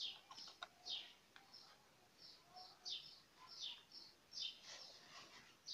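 A small bird chirping over and over, faint short high chirps that drop in pitch, about two to three a second; a couple of faint clicks near the start.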